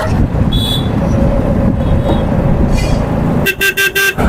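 Congested street traffic: engines and road noise run throughout. Near the end, a vehicle horn honks in a quick string of about five short blasts.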